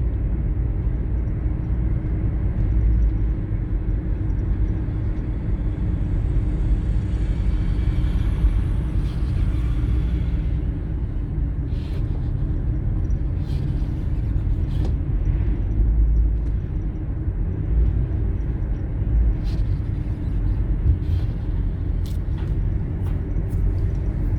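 Steady low rumble of a vehicle travelling along a road, engine and tyre noise, with a few short sharp clicks or knocks in the second half.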